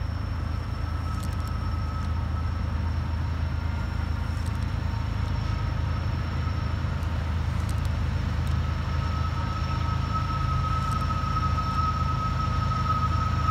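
Diesel freight train approaching slowly with its brakes applied on wet rails: a steady low rumble, with a thin steady high whine that grows louder toward the end.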